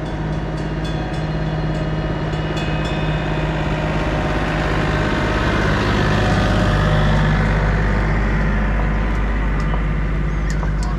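Honda ADV150 scooter's single-cylinder engine running steadily at an even pitch, with a little extra hiss and a slight swell in level midway through.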